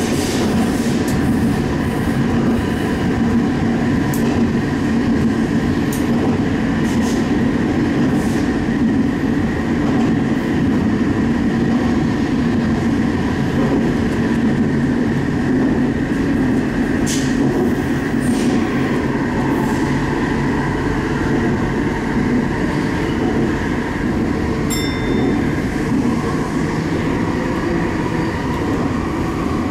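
Sendai Subway Tozai Line 2000 series linear-motor train running steadily through a tunnel, heard from inside the front car: a constant rumble of wheels on rail with a faint steady whine and occasional light clicks.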